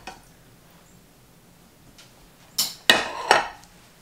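After a couple of seconds of quiet, three sharp clattering knocks within under a second: white plates, just lifted out of the pickle jars, being set down on the counter.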